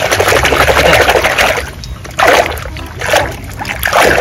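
A hand swishing and splashing through soapy, foamy water in a basin of plastic toys. It comes as one long stirring stretch, then a few shorter splashy strokes.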